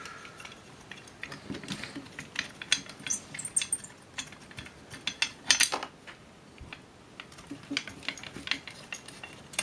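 Screwdriver turning out the screws of a metal mounting plate: irregular metallic clicks, scrapes and clinks of the blade, screws and washers against the plate, the sharpest about three and five and a half seconds in.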